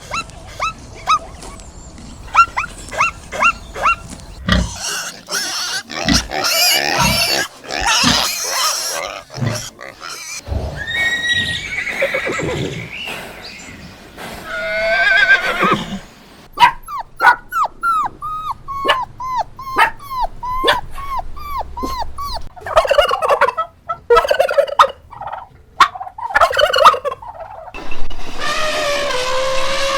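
A series of different farm animal calls, one recording after another: short repeated calls, then a quick run of falling calls, and a long drawn-out call near the end.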